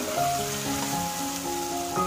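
Instrumental background music, a melody of held notes changing pitch every half second or so, over a steady sizzle of masala frying in oil.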